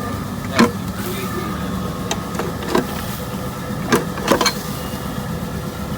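A steady engine-like hum with a few held tones, broken by about five sharp knocks or clacks at irregular moments.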